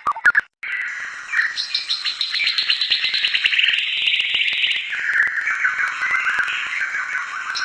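A songbird singing a fast, continuous twittering warble of quick chirps and whistles, starting after a brief silent break about half a second in.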